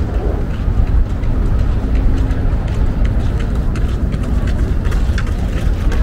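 Steady low rumble of wind buffeting the microphone, with faint crunching footsteps on a gravel path.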